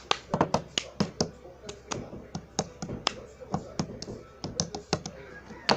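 A rapid, uneven run of sharp taps and clacks, typical of cups being tapped on a hard surface, with a louder clack near the end.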